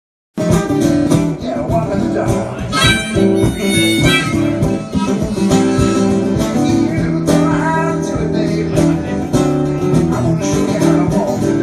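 Blues-style background music with harmonica and acoustic guitar, starting abruptly about half a second in.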